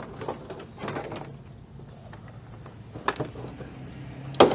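Plastic clips of a 2014 Toyota Avalon's front bumper cover popping and knocking as the cover is pulled free by hand. A few soft clicks, then one louder sharp snap near the end.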